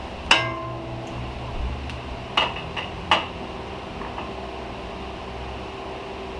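Steel tooling and gearbox parts clinking against a hydraulic shop press. There is one sharp, ringing clink just after the start, then two more close together a couple of seconds later, over a low steady hum.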